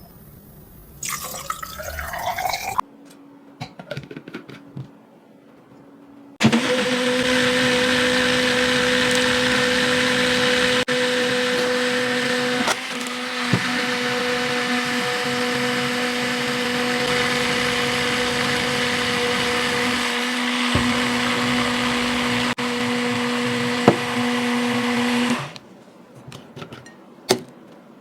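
Agaro portable blender's motor running steadily with a constant hum, switched on about six seconds in and cutting off sharply a few seconds before the end. Brief, quieter handling sounds come before it.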